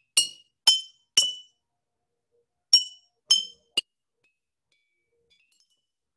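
A knife tapping water-filled glass mason jars: six clear ringing pings, three about half a second apart, a pause of about a second and a half, then three more, the last cut short. The jars ring at different pitches, set by how much water each holds: the less water, the higher the note.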